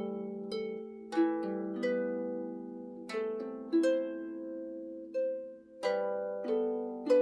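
Background music: a slow, calm melody of plucked harp-like string notes, each ringing out and fading as the next is struck, about one or two notes a second.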